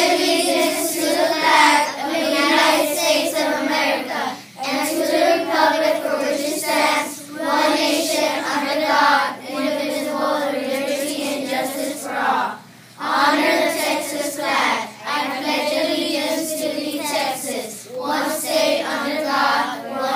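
A class of third-grade children reciting the Pledge of Allegiance in unison, then the Texas state pledge, in short phrases with brief pauses between them.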